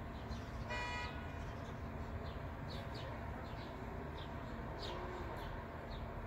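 A short car horn toot about a second in, over a steady low traffic hum, with small birds chirping repeatedly.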